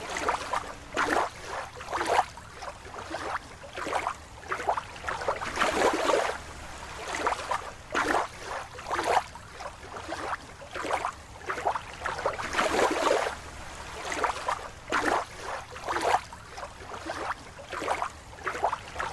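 Water sloshing and splashing in short irregular bursts, one or two a second.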